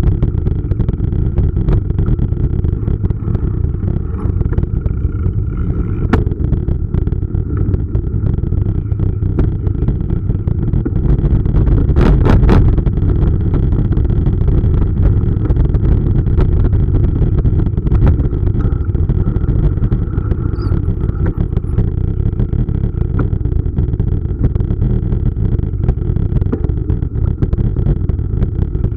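Steady, loud low rumble of wind buffeting a bike-mounted camera's microphone, mixed with tyre noise from a mountain bike rolling on a gravel path. A short burst of rattling clicks about twelve seconds in.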